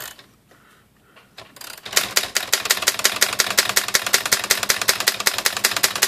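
Underwood Touchmaster 5 manual typewriter being typed in a fast, even run of keystrokes, one key struck over and over, starting about two seconds in. This is test typing to check that the newly installed ribbon feeds and its spool turns.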